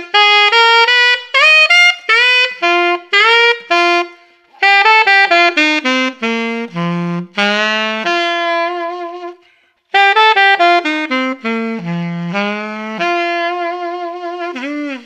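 Alto saxophone playing a bluesy lick in D slowly, twice, with a short break about nine and a half seconds in. Each pass steps down to low notes and ends on a held note with vibrato.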